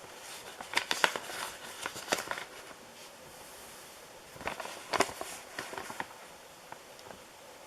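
Handling noise: two clusters of rustling and light clicks, the first starting about a second in and the second about halfway through, over a faint steady hiss.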